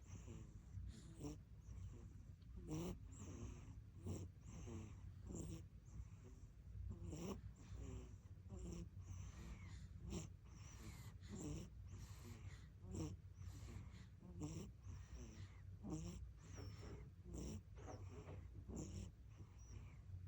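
A sleeping baby's breathing, faint, with light snores and sighs coming in short, irregular breaths about once or twice a second.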